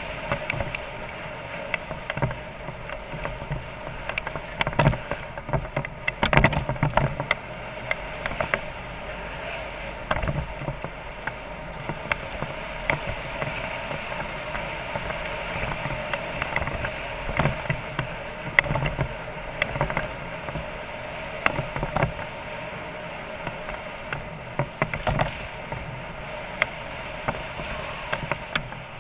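BMW F650GS Dakar's single-cylinder engine running steadily as the motorcycle rides over a rough gravel track. Frequent irregular knocks and rattles come through as the bike goes over the bumps.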